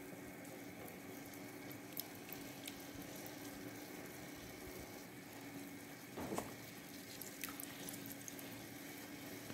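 Faint bubbling and small pops of red kidney bean curry simmering in an aluminium pot, over a low steady hum; near the end, lemon juice drips into it.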